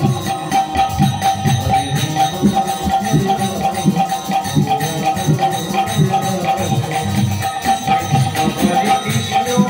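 Instrumental passage of Bengali kirtan music: rapid hand-drum strokes and jingling hand cymbals keep a busy rhythm over a steady held tone.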